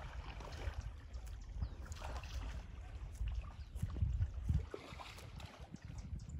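Gentle river water lapping and trickling around a kayak on the water, with scattered small drips and clicks. Low rumbling thumps on the microphone are loudest about four seconds in.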